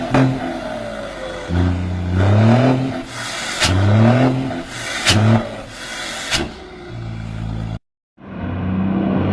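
Motorcycle engine accelerating hard, its pitch climbing several times in a row as it goes up through the gears, with a few sharp cracks in between. The sound cuts out abruptly near the end and comes back as a steadier engine note.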